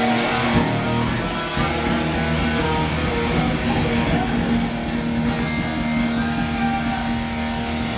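Live thrash metal band playing loud distorted electric guitars, with long held notes and chords ringing out.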